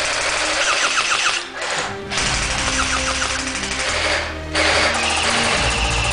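Background music with steady bass notes and a repeating high riff, broken off briefly twice.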